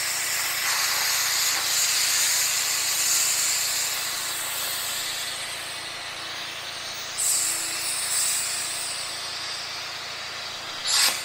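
Thermal Dynamics (ESAB) Cutmaster 40 plasma cutter with a drag tip cutting 3/16-inch-wall square steel tube freehand: a loud, steady hiss of the plasma arc and compressed air. It starts abruptly, flares louder briefly near the end and cuts off suddenly.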